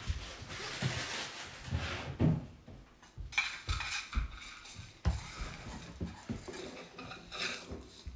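Cutlery and dishes clinking and clattering, with scattered dull knocks; the sharper clinks come from about three seconds in.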